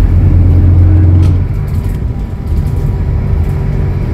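Scania DC09 five-cylinder diesel of a city bus, heard from inside the bus, pulling under load with a strong low hum. Just after a second in there is a click and the engine note drops, and it carries on running more quietly.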